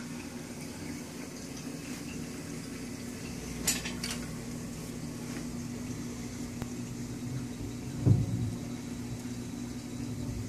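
Steady low hum and watery hiss of a reef aquarium's pumps and circulating water. A short click comes about four seconds in, and a louder low thump about eight seconds in.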